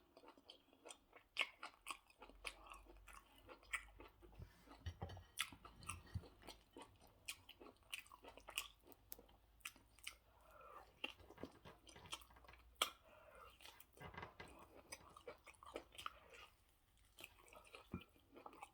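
Close-up chewing of a mouthful of rice and stew: soft, wet mouth clicks and smacks, several a second and irregular.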